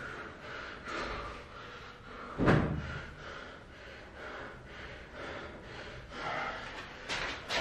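A man breathing hard during burpees, about one breath a second, with a single thump on the exercise mat about two and a half seconds in.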